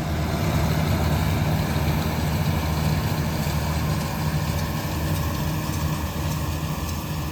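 Farm tractor engine running steadily with a low, even hum; it swells up right at the start and holds.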